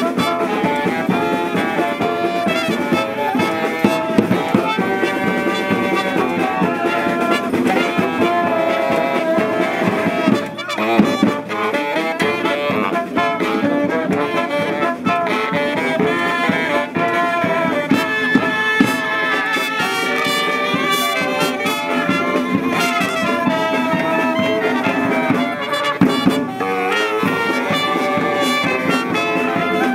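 A street brass band of saxophones, including a baritone saxophone, trumpets and a carried drum, playing a tune together with a steady drumbeat.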